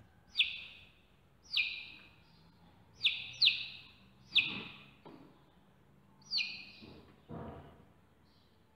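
Baby chick peeping: six short, high cheeps, each sliding down in pitch, spaced irregularly with a close pair about three seconds in.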